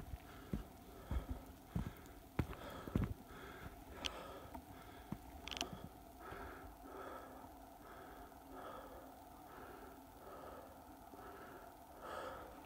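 A hiker's heavy breathing in quick, even breaths, about two a second, after climbing. In the first few seconds, footsteps on a dirt trail thump and scuff over it.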